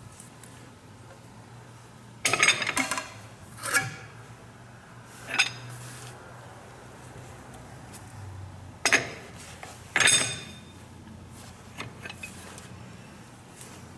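About five sharp metal-on-metal clanks with a ringing tail, the first a short rattling cluster, from a large four-jaw lathe chuck being turned by hand and its jaws adjusted while a cast pulley hub is centred against a dial indicator.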